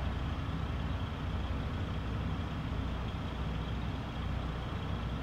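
Low, steady engine rumble, as of an engine idling.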